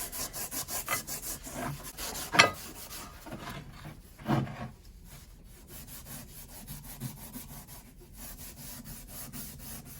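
Scotch-Brite pad scrubbing the rusty steel hook of a cant hook, rapid back-and-forth strokes that ease off after the first few seconds. A sharp clank about two and a half seconds in.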